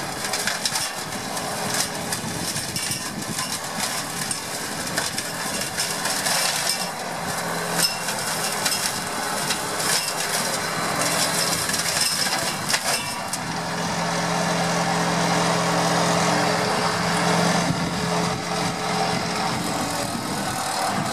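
New Holland 8360 tractor running under load, driving a Bomford reach-arm flail hedge cutter, with a steady hum from the machine and rapid snapping of twigs and branches being shredded, thickest in the first half. The low engine note grows stronger about two-thirds of the way through.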